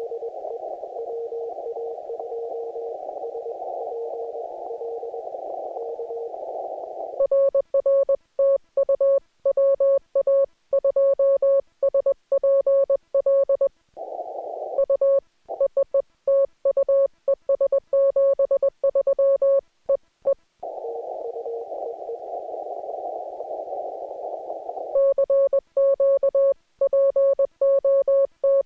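Morse code (CW) exchange on an amateur HF radio. Stretches of receiver hiss through a narrow CW filter, with a weak station's keyed tone in it, alternate with the operator's own loud, clean keyed sidetone at a slightly higher pitch, during which the hiss drops out. The weak Morse fills the first seven seconds and returns for a few seconds past the middle. The operator sends in between and again near the end.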